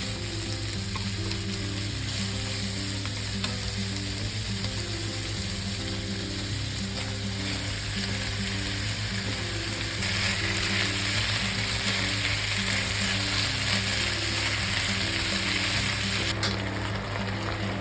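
Food sizzling as it is stir-fried in a pan, with stirring; the sizzle grows louder about ten seconds in.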